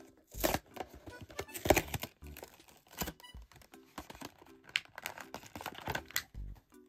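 Stiff clear plastic blister packaging crackling and crinkling as it is peeled off its card backing and pulled apart by hand, in irregular sharp crackles, the loudest a little under two seconds in.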